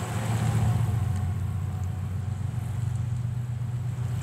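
Diesel locomotives of a four-unit BNSF lashup led by a GE Dash 9-44CW, working under power with a steady low engine drone carried across the river. It swells about half a second in and then holds.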